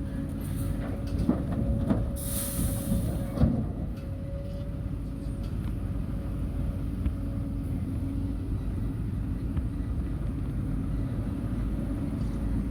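Diesel engine of heavy earthmoving equipment running steadily with a low rumble and a faint whine. A few clunks come in the first few seconds, and a short hiss comes about two seconds in.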